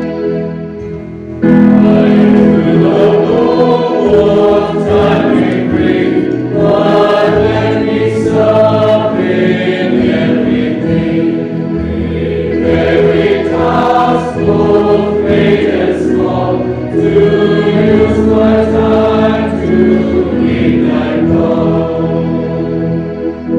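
Congregation singing a hymn to organ accompaniment. The organ sounds alone at first, and the voices come in loudly about a second and a half in.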